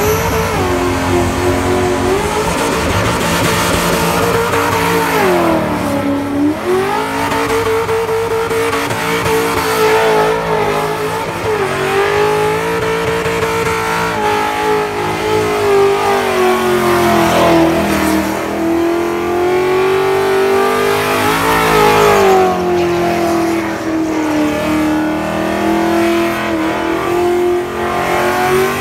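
Holden Statesman burnout car held at high revs, its engine note wavering and dropping briefly several times, over the squeal and hiss of spinning rear tyres.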